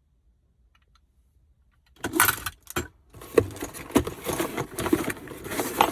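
Lock parts and their packaging being handled: quiet for about two seconds, then rustling with a run of clinks and clicks.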